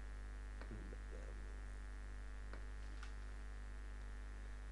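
Steady electrical mains hum with a buzzy edge, picked up by the recording, with a few faint clicks in the first few seconds.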